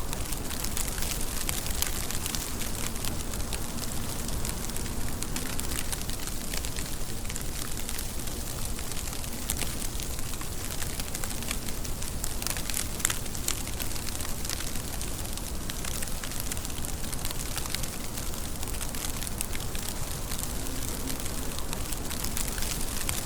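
Steady rain, a dense even hiss of falling water with many small sharp ticks of single drops striking a surface.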